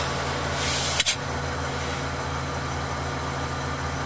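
Mobile crane's engine running steadily at idle, with a short hiss ending in a sharp click about a second in.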